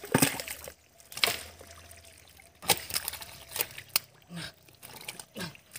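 Hands working through wet mud and shallow muddy water, squelching and splashing, with several sharp wet splats at irregular intervals.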